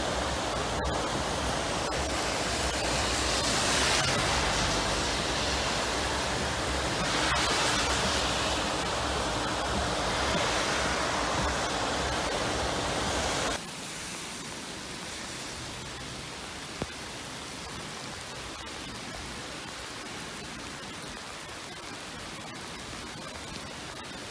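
Muddy floodwater from a cloudburst rushing across a road, a steady rush of water. About halfway through it drops suddenly to a quieter, steady flow of a swollen stream, with a single short click a few seconds later.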